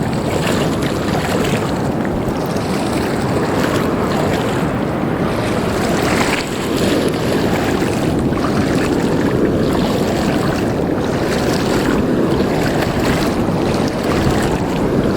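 Steady rush of surf and moving water mixed with wind buffeting the microphone, with no clear detector tone.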